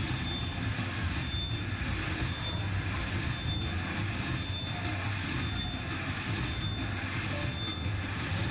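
Casino floor din: a steady low hum and crowd murmur with high electronic slot machine chimes and tones that come and go about once a second.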